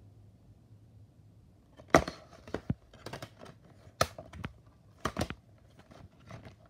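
Plastic DVD case being handled: a run of sharp clicks and snaps beginning about two seconds in, as the case and its disc trays are opened and flipped.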